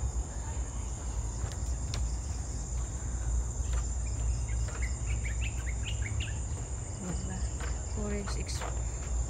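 Steady, high-pitched drone of an insect chorus in the forest, with a low rumble on the microphone underneath. A few short bird chirps come in around the middle.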